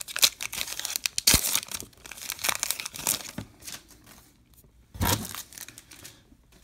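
Foil wrapper of a Topps Heritage Minor League Baseball card pack crinkling and tearing as the pack is opened, most densely over the first three seconds, with a brief louder rustle about five seconds in.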